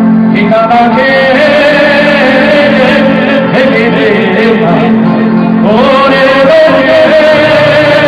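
Live music: a man singing an ornamented, wavering melody into a microphone over electronic keyboard accompaniment, with a rising slide in pitch about six seconds in.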